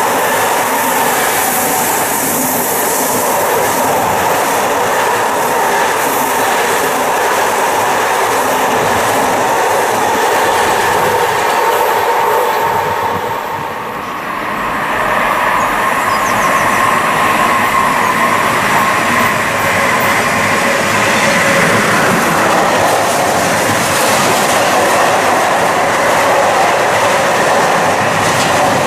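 Freight train rolling past, its wagons' wheels clattering over the rail joints in a steady loud rush that dips briefly about halfway through.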